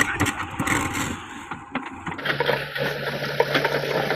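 Diesel engine of a JCB 3DX backhoe loader running, with irregular knocks and clatter for the first two seconds. The sound then changes abruptly to a steadier engine hum.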